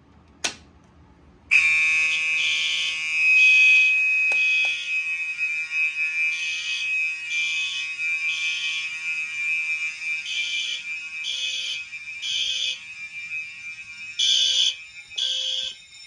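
Fire alarm devices going into alarm after a sharp click: a steady high-pitched tone comes on about a second and a half in and keeps sounding, while a second device pulses over it in the temporal-three evacuation pattern, three blasts then a pause, repeating.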